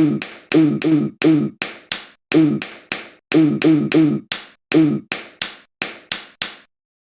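Eating sound effect: a quick, even run of chomps, about three a second, that stops suddenly near the end.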